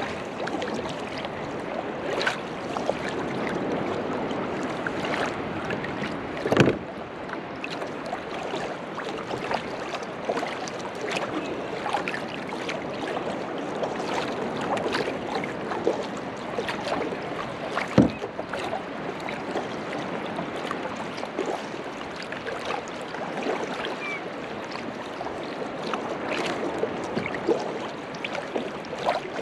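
Small waves lapping and splashing against a kayak's hull as it drifts, with many little splashes and two sharper knocks, about six and a half and eighteen seconds in.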